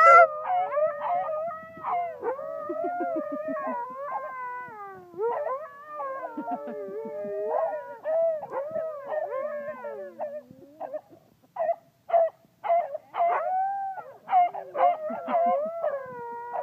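A Siberian husky and several hounds howling together: long, wavering howls that overlap one another. From about eleven seconds in, the howls break into shorter, choppier calls.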